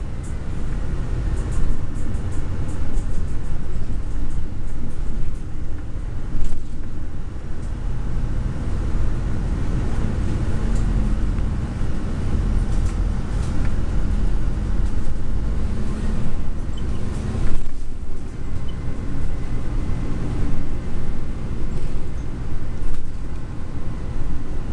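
Hino HU3K city bus heard from inside the passenger cabin while under way: a steady deep engine rumble with road noise. There are a few sharp clicks in the first few seconds, and the engine note climbs about two-thirds of the way through as the bus pulls harder.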